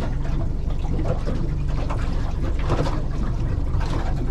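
Outboard motor of an aluminium Quintrex 430 Fishabout running steadily at trolling speed, with lake chop splashing against the hull a few times.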